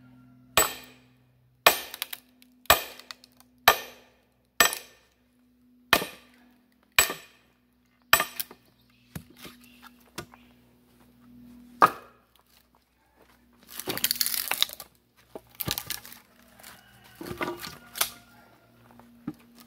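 Sledgehammer striking the head of a splitting maul stuck in a black locust round, steel on steel with a ringing clank, about eight blows roughly once a second, driving the maul through until the round splits. Later, the split wood tears apart as the fibres still holding the halves together give way, with a few knocks of wood and tools.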